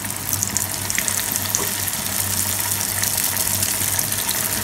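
Breadcrumb-coated chicken pieces deep-frying in hot refined oil in a kadai: a steady sizzle with fine crackles as more pieces go into the oil.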